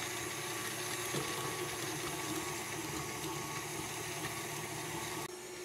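Electric stand mixer running steadily, its whisk attachment whipping butter in a glass bowl: a constant motor hum and whir.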